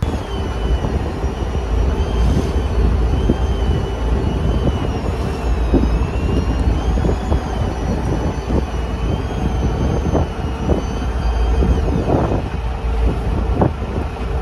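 Fishing boat's engine running with a steady low rumble, wind buffeting the microphone, and a faint high whine that wavers up and down in pitch until about twelve seconds in. A few light knocks come near the end.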